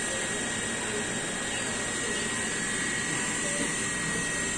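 Steady background noise: an even hiss and hum with a thin, constant high whine, and no distinct handling sounds.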